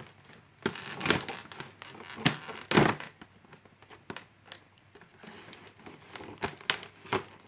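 A prize package being opened by hand: wrapping crinkling and tearing, with a few knocks as it is handled, the loudest about three seconds in.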